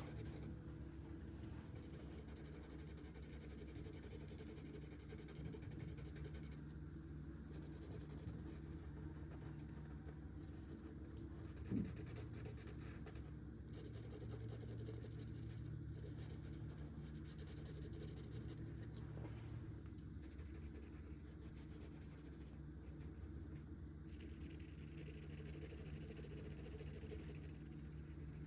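Marker tips stroking across paper in coloring, a soft scratchy hiss that stops and starts with short pauses between strokes. A single sharp click about twelve seconds in.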